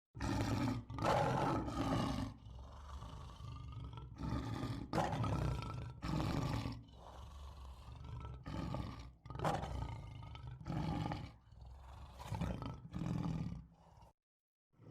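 A large animal roaring over and over: a series of loud, deep calls about half a second to a second each, with quieter rumbling stretches between them. The calls break off just before the end and then start again.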